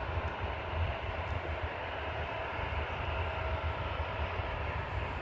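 Boeing 737 jet engines running steadily, a continuous low rumble with a faint steady whine above it.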